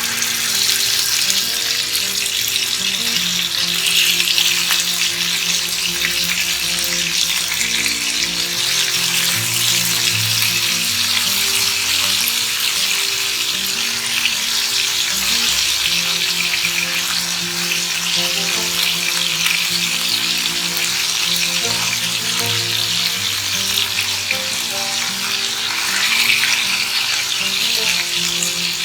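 Marinated chicken pieces frying in hot oil on high heat, with a loud, steady sizzle.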